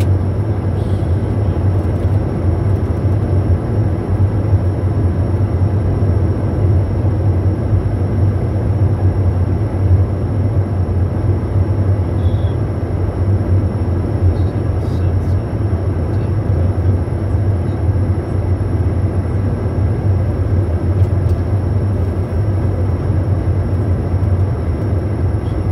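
Steady flight-deck noise of a Bombardier Challenger 350 business jet on approach: air rushing past the cockpit over a strong, even low drone, with two faint steady high whines.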